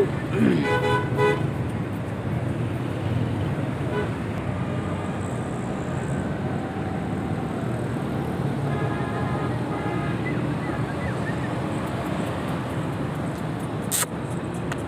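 Steady background traffic noise with brief horn toots, one about half a second in and a fainter one around nine seconds in, and a single sharp click near the end.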